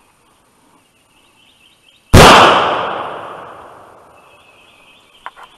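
A single rifle shot about two seconds in, sharp and very loud, its report echoing through the woods and dying away over about two seconds.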